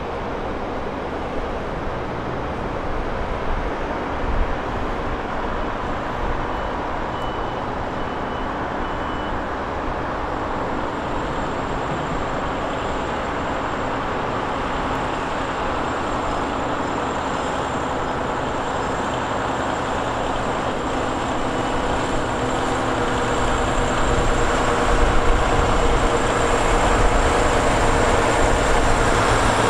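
Heavy diesel semi tractor pulling an empty multi-axle lowboy trailer, its engine rumbling steadily as it approaches and growing louder in the last few seconds as it draws close.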